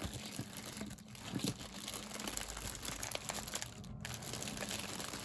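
Rustling and crinkling of packets of craft embellishments being rummaged through by hand, with small clicks and taps.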